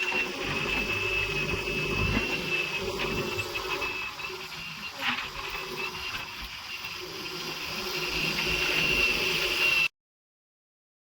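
JCB 3DX backhoe loader running, a steady high whine over a low engine rumble, dipping in level midway and swelling again before cutting off suddenly near the end.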